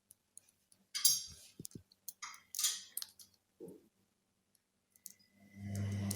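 Small clicks and brief rustling of tools and parts being handled on a repair bench. About five and a half seconds in, an electric bench machine switches on and runs with a steady low hum.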